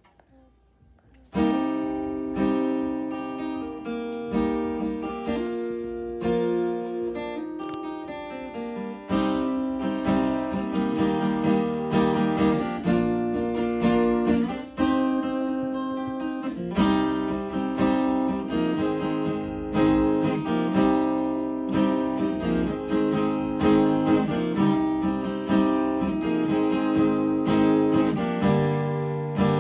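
Two acoustic guitars playing chords together as an instrumental intro, coming in suddenly about a second and a half in, with no singing over them.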